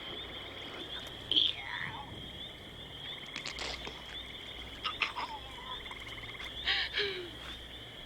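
Night outdoor ambience: a steady, high insect trill with short frog calls breaking in several times, some of them sliding down in pitch.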